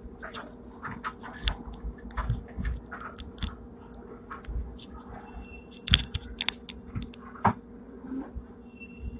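Hong Kong tram No. 120, a replica fifth-generation car, running slowly: irregular clatter and knocks from the car body and the wheels on the rails over a steady low hum. A short high tone sounds twice in the second half.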